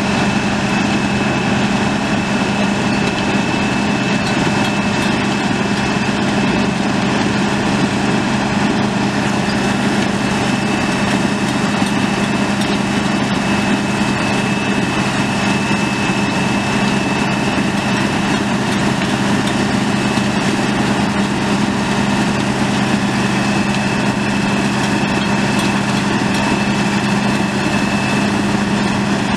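Caterpillar 3408 eight-cylinder diesel engine of a CMI PR500FL Roto Mill pavement milling machine running steadily at a constant speed, with a thin steady high whine above the engine note.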